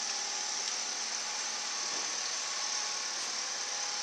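Yamaha outboard motor running steadily, a constant hum over an even hiss.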